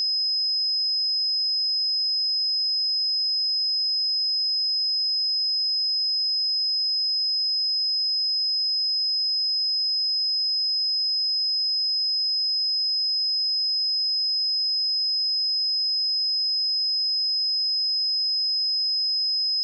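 A steady pure sine-wave test tone at 5075 Hz, a single high-pitched whistle-like pitch held unchanging.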